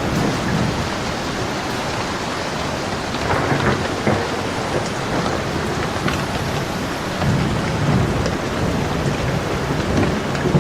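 Steady rain with low rolling thunder, the rumble swelling again about seven seconds in.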